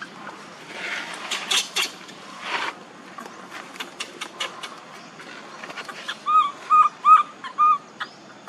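Baby macaque crying as it writhes on the ground, giving four short high-pitched squealing cries in quick succession near the end. Scattered crackles and rustles come from the dry leaves beneath it.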